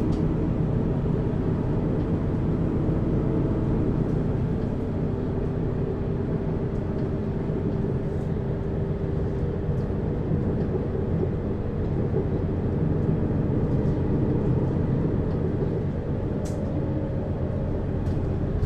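Interior of a Mercedes-Benz Citaro city bus on the move, heard over the rear axle: the diesel engine and ZF automatic driveline running steadily, with road rumble and a few faint clicks and rattles.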